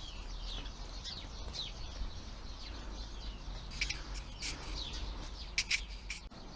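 Small birds chirping repeatedly in the background, short high falling calls, with a few sharp clicks of parts or packaging being handled in the second half.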